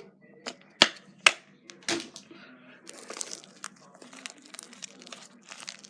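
Lotion bottle being opened and squeezed out onto slime: two sharp clicks about a second in, then a stretch of soft crackling.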